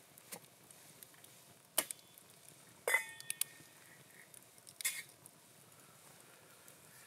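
Metal lid clinking against a small camp cooking pot as it is lifted off, one ringing clink about three seconds in, followed by a second clatter as the lid is handled and set down. A few lighter clicks and knocks fall around them.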